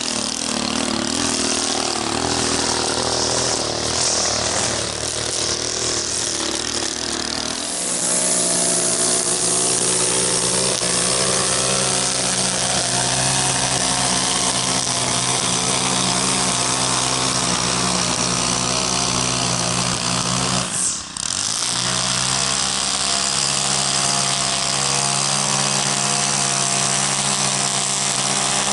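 Gas-powered string trimmer running at high throttle while cutting grass. Its engine note shifts about eight seconds in and dips sharply for a moment about twenty-one seconds in before picking back up.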